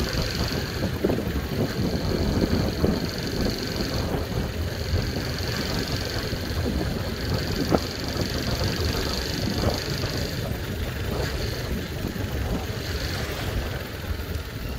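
Motor scooter engine running steadily while riding at cruising speed, with a low rumble of wind on the microphone.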